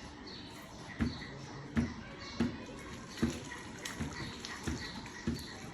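A series of dull knocks, roughly one every two-thirds of a second, starting about a second in.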